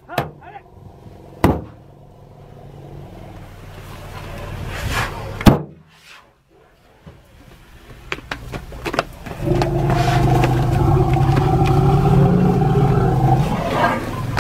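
A safari jeep's engine revving up and held at high revs for about four seconds in the second half, after a few sharp knocks and a swelling engine noise earlier on.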